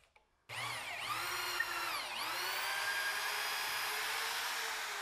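Handheld corded electric drill boring a hole into a walnut shelf. The drill starts about half a second in, and its motor whine dips in pitch about two seconds in as the bit bites into the wood, then recovers and holds steady.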